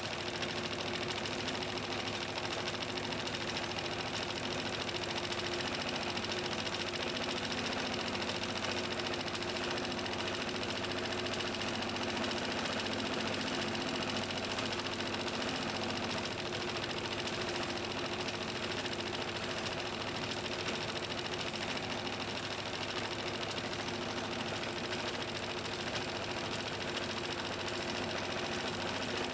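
A 1957 Necchi Supernova Automatica electric sewing machine running steadily, sewing a cam-driven Greek-key embroidery stitch.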